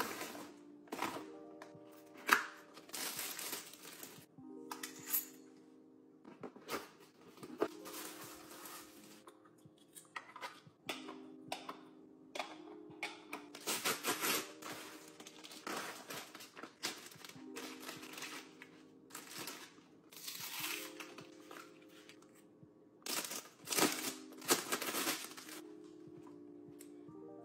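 A paper mailer bag being torn open and rustled by hand, in repeated short bursts of crinkling and tearing, over soft background music.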